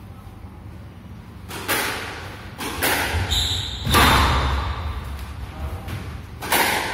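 Squash ball struck by racquets and hitting the court walls during a rally: about five sharp hits with echoing tails, the loudest about four seconds in. A short high squeak sounds just after three seconds.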